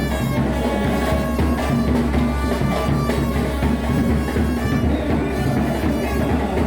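Carnival music with drums and percussion, played loud and without a break.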